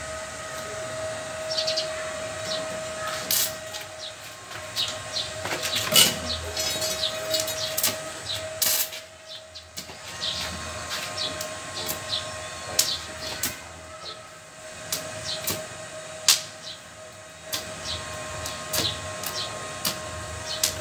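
MIG welding arc crackling and spitting in irregular bursts, pausing briefly a little before halfway, over a steady high whine.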